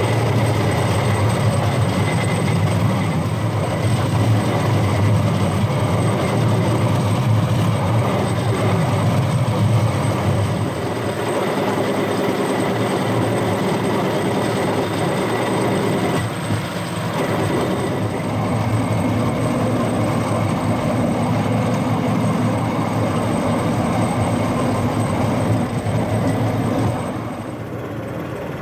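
Rail-mounted golf cart running along railway track: a steady motor hum with the rumble of its wheels on the rails and a faint steady whine. The noise drops away near the end.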